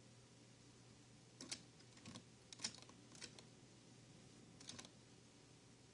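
Near silence, broken by a few faint, scattered clicks from a computer keyboard and mouse.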